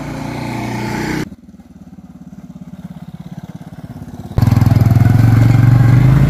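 Small motorcycle engines in three edited takes. First a scooter comes closer and grows louder. After a cut about a second in, a motorcycle runs at low revs with an even pulsing beat. Then, about four seconds in, a much louder motorcycle engine runs steadily close by.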